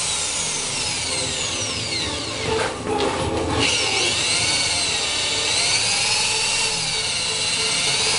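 Corded electric drill running under load, boring upward into the van's steel frame rail to make a hitch-bracket bolt hole. Its whine sags and wavers in pitch as the bit bites, with a brief lull about three seconds in.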